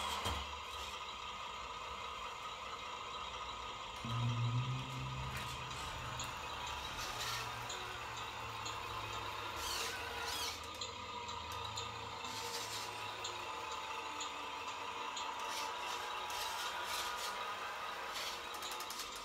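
Radio-controlled Mercedes-Benz Arocs model truck driving, its sound unit giving a low diesel-engine note that rises about four seconds in, over a steady high motor whine. A short hiss comes near the middle.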